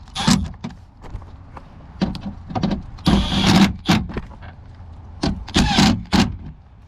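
Hard plastic knocks and clicks with a short scraping rub about three seconds in, as a car speaker on its plastic spacer is pushed and popped into the door.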